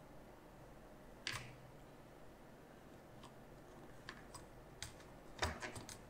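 Scattered light clicks and taps of small tools and parts being handled at a repair bench, with a quick run of clicks near the end.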